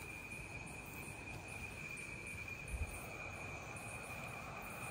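Crickets trilling in one steady, unbroken high note, with a faint low rumble beneath and a soft bump a little past halfway.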